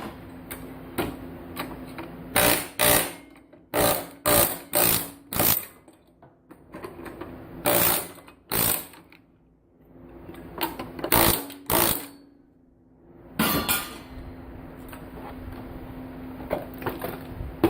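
Pneumatic air chisel (air hammer) firing in short rapid bursts, about a dozen, as it knocks components off circuit boards, with pauses between groups of bursts. A steady low hum runs underneath.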